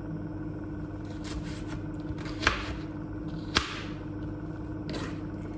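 Two sharp knocks about a second apart, with a few fainter ticks, over a steady low hum in a kitchen.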